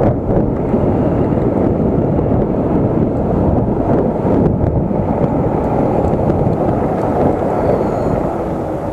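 Wind buffeting an action camera's microphone on an electric scooter riding along at speed: a steady, loud rush with no breaks.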